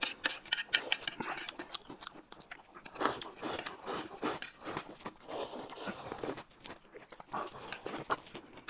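Close-miked eating: slurping broth straight from a plate and chewing, in a string of short, irregular wet clicks and slurps.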